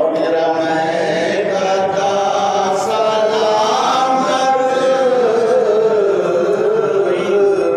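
Unaccompanied male voice singing an Urdu Sufi manqabat (devotional hymn) in long, drawn-out melodic lines that slide slowly in pitch.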